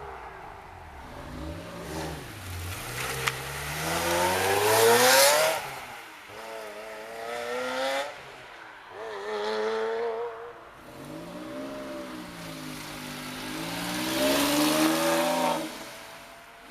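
V8 sports car engine revving, its note climbing and dropping several times, loudest about five seconds in and again near fifteen seconds.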